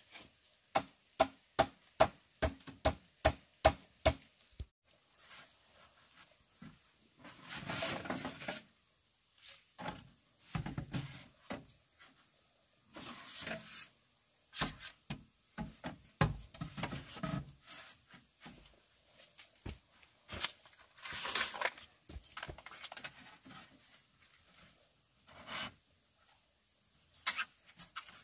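A quick, even run of about a dozen sharp strikes, roughly three a second, followed by scattered rustling and scraping with a few knocks.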